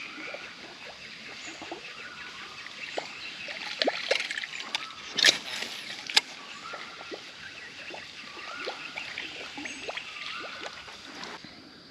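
Water sloshing and splashing around a kayak, with scattered sharp knocks and clicks; the loudest knock comes about five seconds in. A short rising whistle recurs every second or two.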